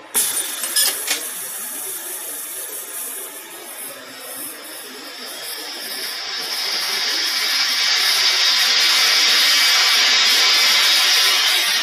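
Drill spindle of a gantry CNC cutting machine drilling into metal plate: a steady hissing cutting noise that grows louder over the second half, with a few sharp clicks about a second in.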